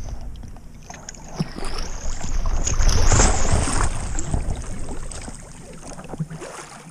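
A person in a life vest, with a wakeboard strapped to his feet, dropping off a boat's swim platform into lake water: a big splash about three seconds in, then water sloshing around him as it fades.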